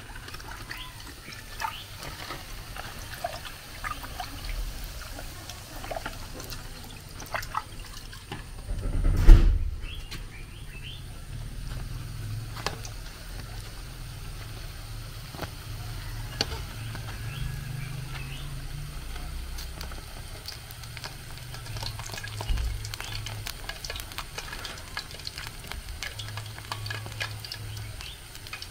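Plantain puff puff dough balls deep-frying in a pan of hot oil, the oil sizzling steadily, with scattered small clicks of a metal fork against the pan. A brief loud low rumble about nine seconds in.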